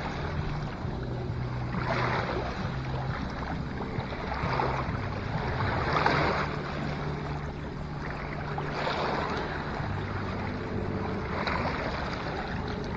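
Wind and lapping water rushing in swells every two to three seconds, over a steady low motor drone.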